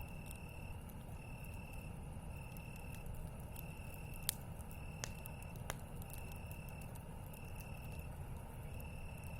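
Campfire burning with a few sharp pops, the loudest about four seconds in, over a steady low rumble. Behind it an insect trills one high note over and over, about once every second and a bit.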